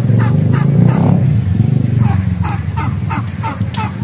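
Short animal calls repeating about three times a second, each falling in pitch, over a steady low rumble, with a couple of sharp crackles near the end.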